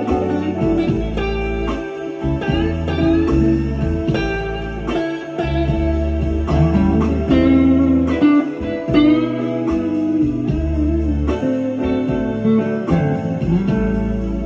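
Electric guitar, a Stratocaster-style solid-body through effects pedals, playing a blues lead with string bends over a backing track with a bass line.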